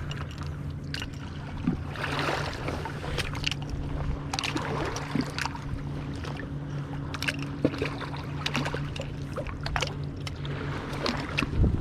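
Water sloshing and splashing irregularly around a person wading in a river, over a steady low hum.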